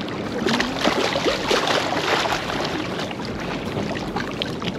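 Small lake waves lapping and sloshing against shoreline rocks: a steady watery hiss with many small splashes and clicks, a little stronger during the first couple of seconds.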